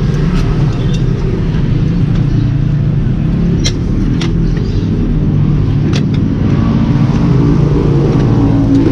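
Steady low hum of an engine running, with a few sharp metallic clinks as steel tire levers are worked between the tire bead and a wheel rim.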